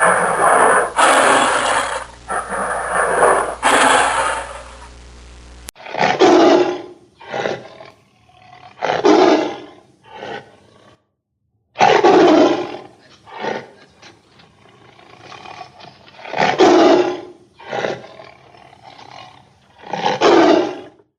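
Tiger roaring repeatedly: a string of loud calls about a second long, each followed by shorter, softer ones, with brief silences between. The recording changes about six seconds in, to a cleaner clip with the same kind of roars.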